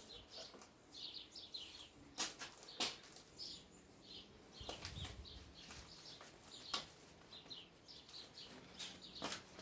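Milling-machine vise being opened and a machined steel part lifted out: a few faint, scattered metal clicks and knocks, with faint short high chirping throughout.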